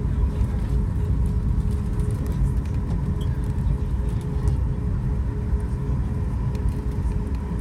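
Cabin noise of a Boeing 737 MAX 8 taxiing with its CFM LEAP-1B engines at idle: a steady low rumble with a faint, even hum above it.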